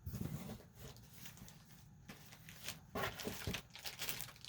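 Crinkling and rustling of sticker packaging being handled, with a couple of sharper crackles about three seconds in.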